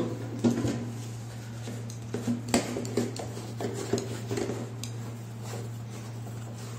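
Hard plastic toilet-cistern fittings clicking and knocking as they are handled and fitted against the plastic tank, in scattered irregular taps, over a steady low hum.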